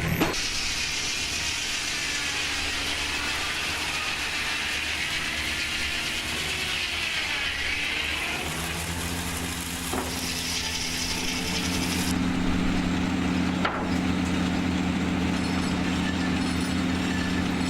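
Sawmill machinery running: a circular saw blade cutting through wood, its high sound sagging and recovering, then the mill running steadily with a low hum and two sharp knocks.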